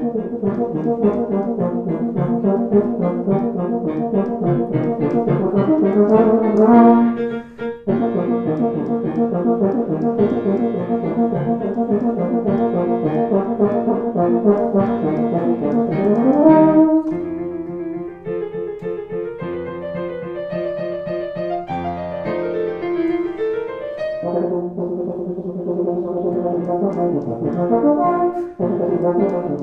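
Euphonium playing a solo melody with piano accompaniment. Its sustained notes break off briefly about seven and a half seconds in, and it plays a quick upward run of notes a little past halfway.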